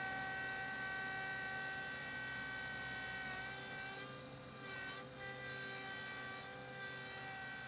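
John Deere 2038R compact tractor's three-cylinder diesel at full throttle, pulling a two-bottom plow, running with a steady whine. Its pitch dips and shifts around the middle, and it fades slowly as the tractor moves away.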